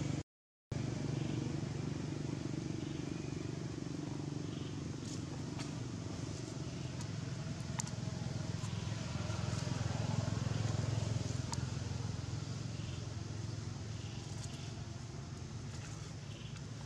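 A steady low motor-like rumble, with a few faint clicks scattered through it; the sound cuts out completely for about half a second just after the start.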